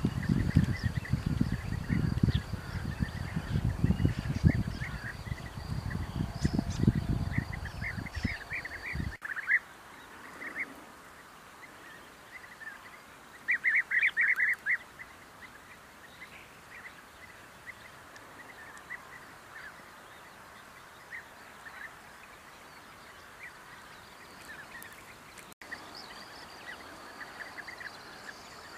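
European bee-eaters calling: short calls repeated in scattered series, with a loud cluster of calls about halfway through. For the first nine seconds a heavy low rumble lies under the calls, and the background changes abruptly twice.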